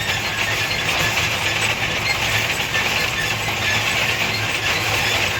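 Farm tractor's engine running steadily while pulling a seeder across the field: a constant low hum with a steady hiss above it.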